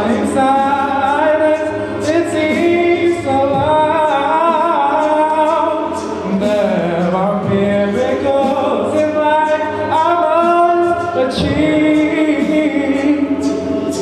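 Mixed male and female a cappella choir singing in harmony, with a male lead voice on a handheld microphone over the backing voices.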